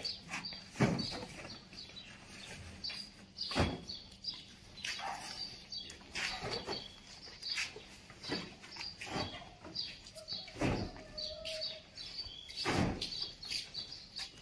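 Irregular thuds and knocks, about eight of them, as cooking oil containers are loaded and stacked into a vehicle, with birds chirping.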